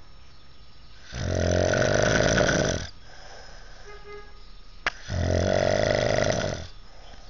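A sleeping man snoring: two loud snores, each nearly two seconds long and about four seconds apart, with quieter stretches between and a single sharp click just before the second.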